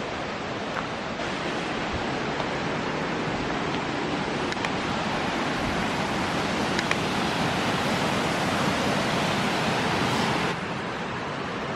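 Waterfall: a steady rush of falling water. It drops abruptly to a lower level near the end.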